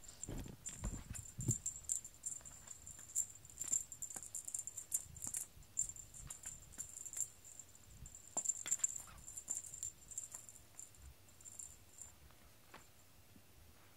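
Small bell on a feather cat-teaser wand jingling in quick, irregular shakes as the wand is flicked about, dying away about twelve seconds in. A few soft thumps at the start.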